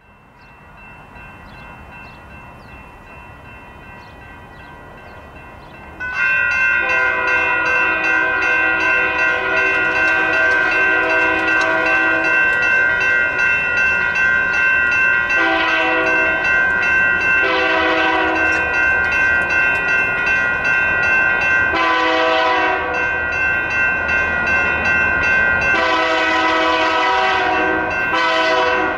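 Grade-crossing signal bells, a mix of General Signals Type 3, NEG and Western Cullen Hayes bells, ringing as the crossing activates. They are faint at first and much louder from about six seconds in. In the second half the approaching freight train's horn sounds several blasts, the longest near the end.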